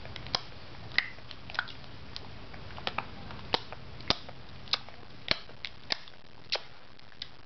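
A run of sharp, short clicks or snaps at uneven spacing, roughly two a second, over a faint low hum.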